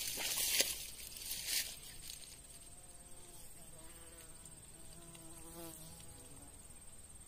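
A flying insect buzzing close by, a faint wavering hum from about two and a half to six and a half seconds in. It follows a few louder bursts of rustling in the first second and a half, with a thin steady high whine behind.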